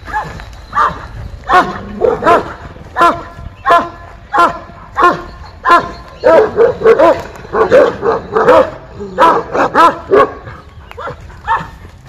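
Large dog barking over and over, about one or two barks a second, with a quicker, denser run of barks in the middle.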